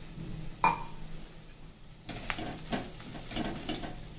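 Steel spoon stirring fried onions and freshly added ground masala in a black kadai, with a single sharp clink against the pan about half a second in. From about two seconds on come irregular scraping strokes of the spoon over the pan, with the frying sizzling faintly underneath.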